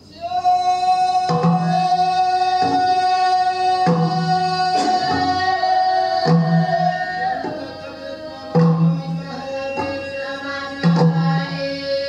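A field recording of a Temiar healing song (noñ) played back: a voice holds long sung notes, dropping to a lower held note about halfway, over a low beat that falls about every two and a half seconds.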